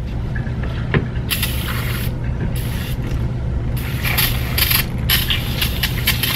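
Aerosol carburetor cleaner sprayed through a straw nozzle into a snowmobile carburetor body, flushing out dirt and film in about four short hissing bursts. There is a click about a second in and a steady low hum underneath.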